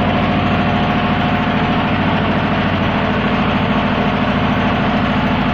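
A heavy engine running steadily: a constant low hum with a faint higher whine, unchanging throughout.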